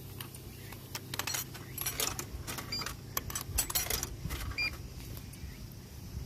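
Coins clinking and clicking into a vending machine, a quick run of metallic jingles and taps with a couple of short electronic beeps, over a steady low hum.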